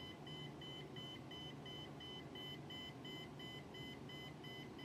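DT-1130 electromagnetic radiation meter's alarm beeping in a fast, even string of short high beeps, about three a second, as it reads a strong field at a computer case.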